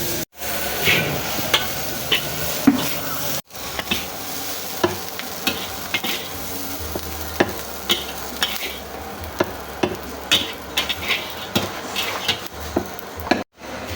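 Stir-frying in a wok: a metal spatula scrapes and knocks against the pan in quick irregular clacks over a steady sizzle of frying food. The sound is broken by three short silences.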